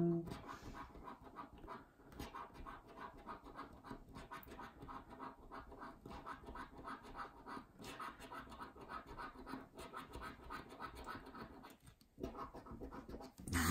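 A coin scraping the scratch-off coating from a paper scratchcard in rapid, repeated short strokes, faint, with a brief pause near the end.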